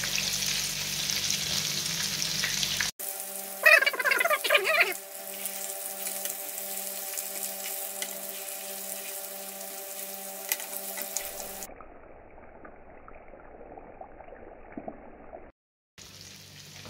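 Beef meatballs sizzling as they fry in hot oil in a pan, the sound cutting off and changing abruptly several times. A steady hum with a few held tones and a slow pulse runs under the middle stretch, and a short louder burst comes about four seconds in.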